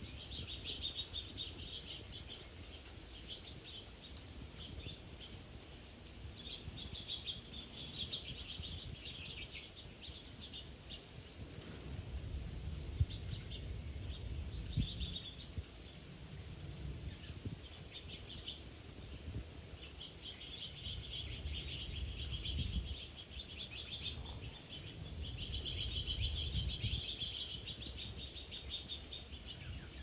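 Small songbirds chirping and twittering in scattered runs of quick high notes, over a low background rumble that swells in the second half.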